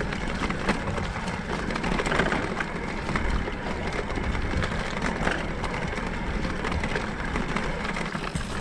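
Mountain bike rolling fast downhill over a bumpy grass and leaf track: a steady rumble of wind over the handlebar microphone and tyres on turf, with frequent small rattles and clicks from the bike jolting over bumps.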